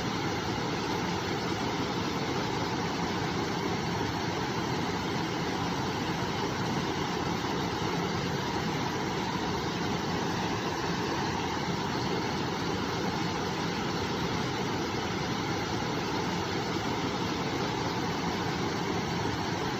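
A river's water flowing, a steady unbroken rush.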